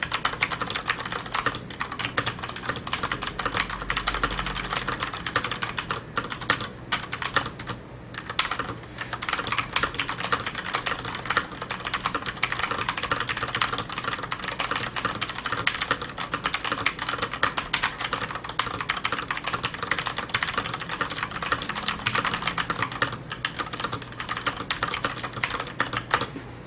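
Fast, continuous typing on a FILCO mechanical keyboard with Cherry MX switches and Signature Plastics PBT DSA keycaps: a dense stream of key clacks broken by a few brief pauses.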